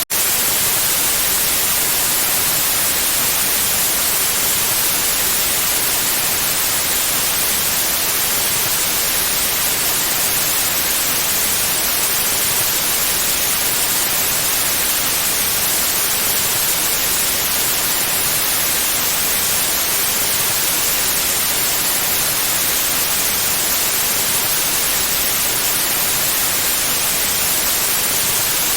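Synthetic white noise: a steady, even hiss spread across the whole range of pitch, brighter toward the top, with no changes except a split-second dropout at the very start.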